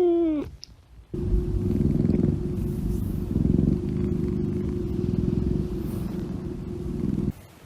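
Domestic cat: the end of a short meow, then steady close-up purring for about six seconds that stops abruptly near the end.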